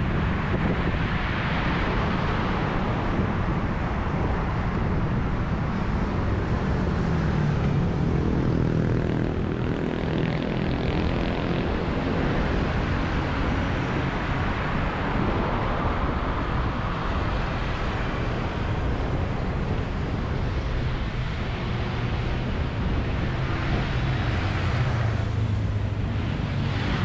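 Steady rumble of a vehicle in motion with a low droning hum, swelling slightly near the start and again near the end.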